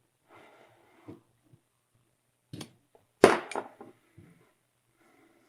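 Short knocks and clatter of hard parts and tools being handled and set down during brake caliper disassembly, with a sharp double knock about three seconds in, the loudest sound, and a few lighter clicks around it.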